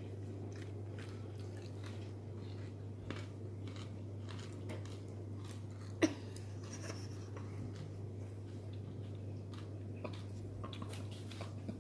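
Someone chewing crunchy caramel-coated popcorn: soft, irregular crunches with one sharper crack about six seconds in, over a steady low hum.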